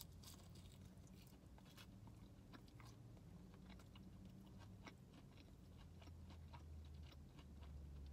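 Faint close-miked eating of a breaded fried chicken finger: a crunchy bite right at the start, then soft irregular crunching and mouth clicks as it is chewed.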